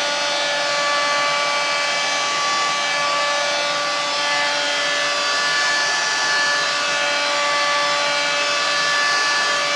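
Electric heat gun running steadily: a continuous rush of blown air with a steady whine from its fan motor.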